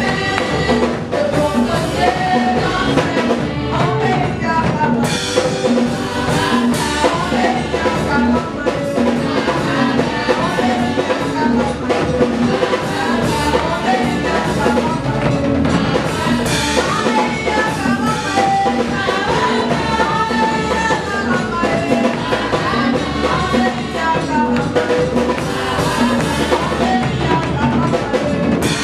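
Gospel praise song performed live: several women singing lead and backing vocals into microphones over a drum kit keeping a steady beat.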